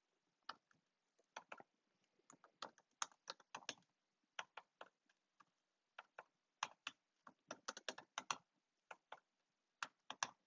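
Faint keystrokes on a computer keyboard typing a search query, sharp separate clicks in short irregular runs with brief pauses between them.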